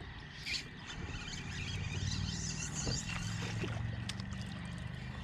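A boat's motor running steadily with a low hum that picks up about a second in, with a few light clicks over it.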